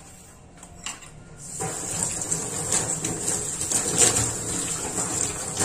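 Kitchen tap turned on about one and a half seconds in, water running steadily into the sink as dishes are washed, with a few light clinks of the dishes.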